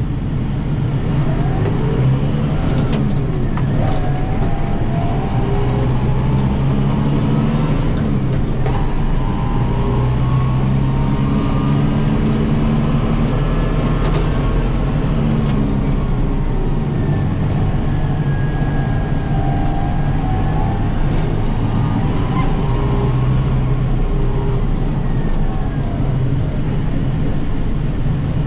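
Kubota M7060 tractor's diesel engine running steadily as it drives, with a fainter whine that glides up and down in pitch.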